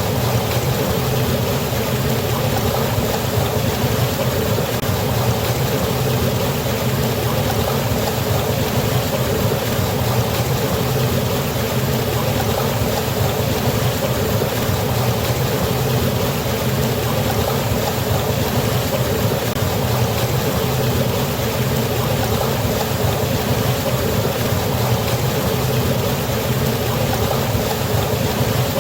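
Water falling and rushing in a river, a steady unbroken rush with no changes.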